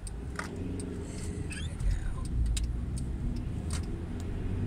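Road and engine noise inside a moving Hyundai i20's cabin: a steady low rumble that grows a little louder, with a few light clicks.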